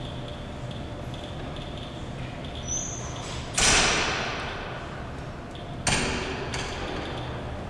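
Two sudden thuds about two seconds apart, the first the louder, each followed by a noisy rush that fades over a second or so, over a steady low hum.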